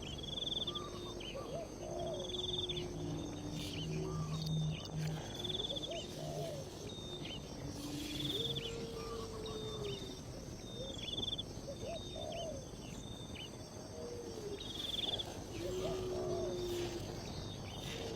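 Wild birds calling again and again, short high chirps and lower gliding calls, over a steady high drone of insects.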